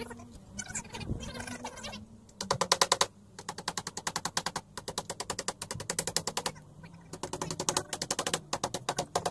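Cordless impact driver driving screws into shed timber: three bursts of rapid, even hammering clicks over the motor's hum, the longest about three seconds, with short pauses between.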